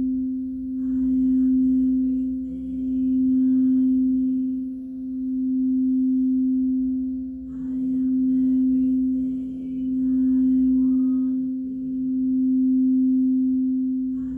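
Singing bowl sounding one sustained low tone, its volume swelling and fading in slow waves about every two seconds.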